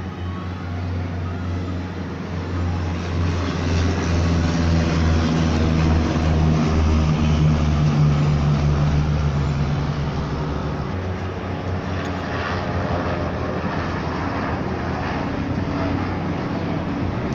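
Engines of a formation of low-flying propeller aircraft droning overhead, loudest about eight seconds in and then easing. Helicopters follow in the later seconds.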